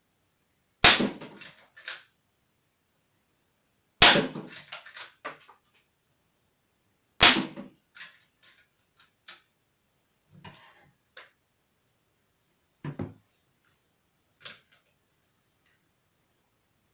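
Walther Lever Action CO2 air rifle firing three sharp shots about three seconds apart, each followed by a short rattle of smaller clicks. After them comes a scatter of quieter clicks and knocks.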